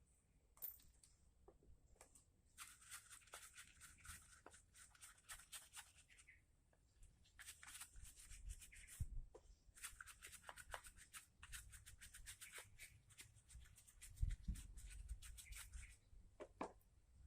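Faint scratching and rapid small clicks in two runs, with a few soft low knocks, the strongest about three quarters of the way in: hands at work on small parts.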